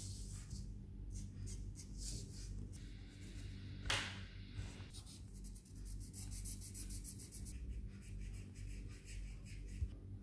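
Felt-tip sketch pen colouring on paper in quick back-and-forth scribbling strokes, with one louder scrape about four seconds in.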